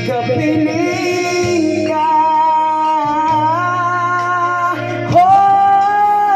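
Karaoke of a slow Filipino love ballad: a singer holds long, wavering notes into a microphone over the song's backing track, which has a steady bass line and guitar.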